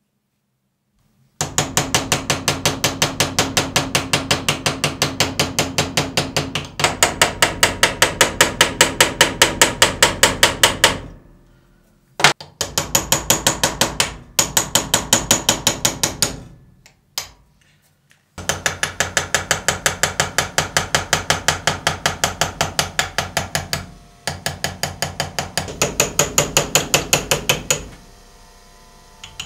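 Rapid, even taps of a small hammer on a hand chisel, cutting an engraved design into a steel hammer head held in a vise. About eight strikes a second, in runs of several seconds with short pauses between them.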